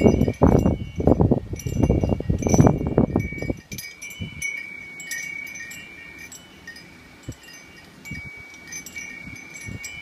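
Wind chime ringing with a steady high tone, struck again and again by the wind. For the first three seconds or so, gusts of wind rumble loudly on the microphone, then ease off and leave the chime ringing.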